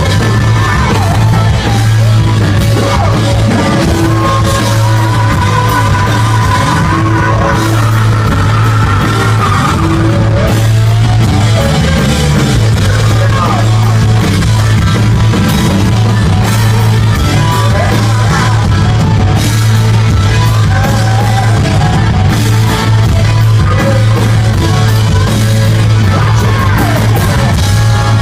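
Rock band playing live, loud: electric guitars, drum kit and a heavy, booming bass, with a singer's voice coming in at times.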